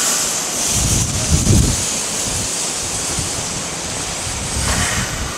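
Heavy rain pouring down, a steady loud hiss, with wind buffeting the microphone in low swells about a second in. Under it, the Kintetsu 8400/8600 series electric train fades as it pulls away.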